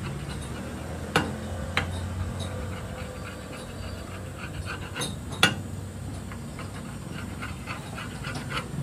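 Metal spatula cutting the dosa on a flat iron griddle: a run of quick light taps and scrapes, with a few louder sharp clinks of metal on metal.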